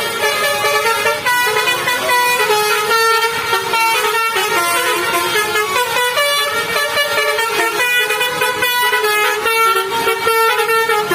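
Bus 'telolet' basuri horn, a musical multi-trumpet air horn, playing a tune of held notes that step up and down in pitch.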